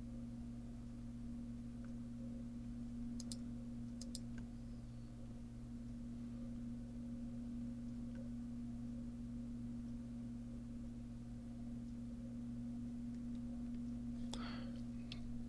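Low, steady electrical hum of the recording setup, with two pairs of faint clicks about three and four seconds in.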